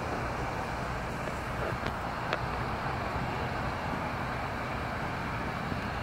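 Steady background noise of distant road traffic, a low even rumble and hiss, with a couple of faint clicks about two seconds in.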